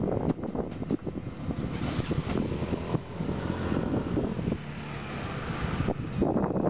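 Hellenic Railways (OSE) class 120 electric locomotive running away after passing, its rumble and hum fading, with wind noise on the microphone.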